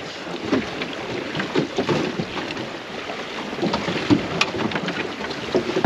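Water rushing and splashing along the hull of a Goat Island Skiff sailing dinghy under way, with wind buffeting the microphone. Scattered small knocks and rattles come through it.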